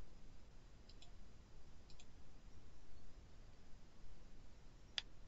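A few faint short clicks, the sharpest about five seconds in, over a low steady background hiss.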